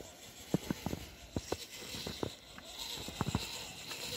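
Irregular crunching footsteps in wet, sticky snow, a few steps a second. From about a second and a half in, a faint high whine from a 4WD RC crawler's electric motor and gears runs under them.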